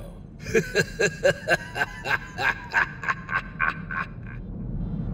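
A man laughing 'ha ha ha ha' in short, evenly spaced pulses, about four a second, trailing off about four seconds in, over a low steady hum.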